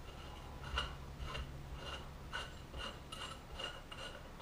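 Oiled threaded plug being screwed by hand into the bottom of a BSA Victor Special fork leg: light metallic ticks and scrapes, about two a second. The cleaned-up threads are turning freely.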